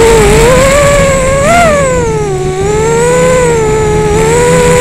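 Rooster 230 FPV quadcopter's motors and propellers whining, the pitch rising and falling with the throttle: a brief rise about a second and a half in, a dip to its lowest about halfway through, then levelling out.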